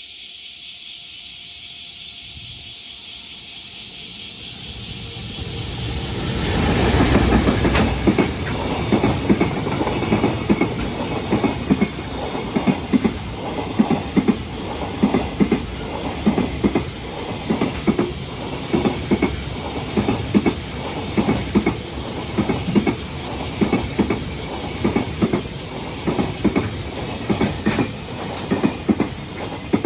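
Freight train hauled by an EF210 electric locomotive passing close by: a hiss builds over about six seconds as the locomotive approaches and goes by, then the clickety-clack of the wagons' wheels over the rail joints repeats steadily, often in pairs, as the long train of wagons rolls past.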